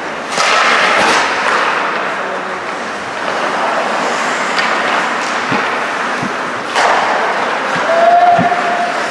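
Ice hockey play in an echoing indoor rink: skates scraping the ice and sticks working the puck. There are two sharp bangs against the boards, one just after the start and one about seven seconds in, and a short held call near the end.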